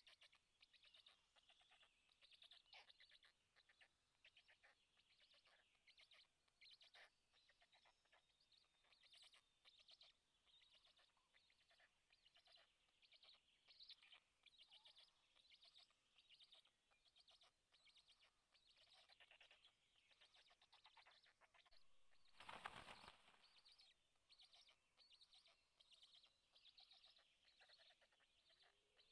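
Faint woodland birdsong, many short high chirps throughout. About two-thirds of the way through comes a brief, louder whoosh.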